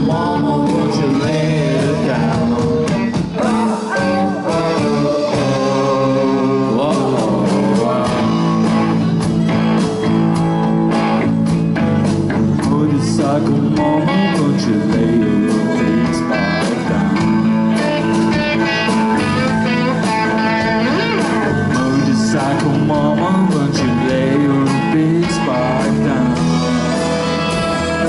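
Live rock band playing: electric guitars and drums, with a violin.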